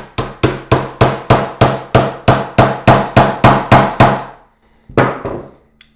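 A hammer rapidly striking a steel chisel set into a 1 oz silver round, about fifteen sharp ringing blows at roughly three a second, then one more blow about five seconds in. The chisel is splitting the coin into quarters along its score lines.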